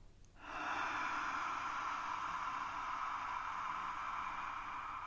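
A long, steady exhalation through a narrowed throat: the breathy, hissing 'ocean sound' of Ujjayi pranayama breathing, made while humming mentally on the out-breath. It starts about half a second in and slowly fades.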